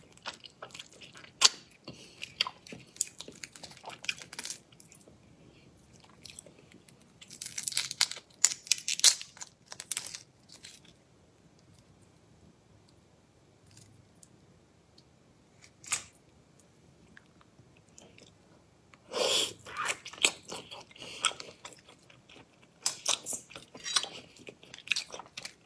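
Close-up crunching and crackling of Argentine red shrimp shells being bitten, chewed and peeled apart by hand. The crackles come in bunches, with quiet pauses between them.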